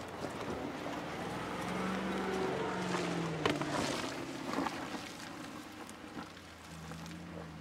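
Land Rover Defender's engine running at low revs as it crawls past, growing louder toward the middle and then fading, with a couple of sharp cracks near the middle.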